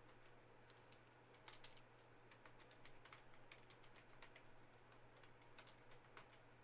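Faint, irregular light clicks, a few a second with gaps, over a low steady hum.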